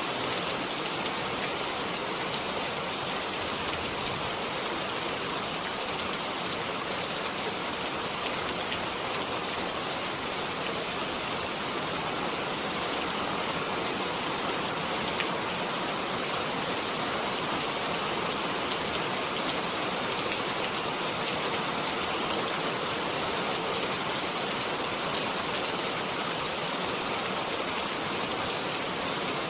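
Steady rain falling, a dense even hiss of drops with a few sharper individual drop ticks standing out now and then.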